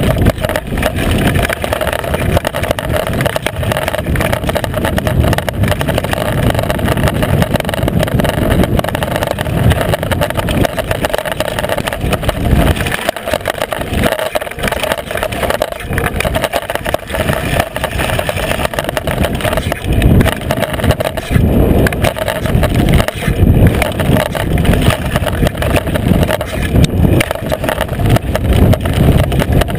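Mountain bike rolling fast down a loose gravel and dirt trail, picked up by a seatpost-mounted GoPro right above the rear tyre. A loud, continuous rumble of tyre noise and wind buffeting that dips briefly about halfway through and surges again near the end.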